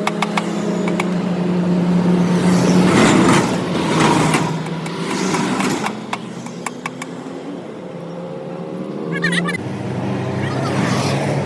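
A vehicle engine running with a steady low hum, with swells of noise a few seconds in and a shift in its pitch near the end.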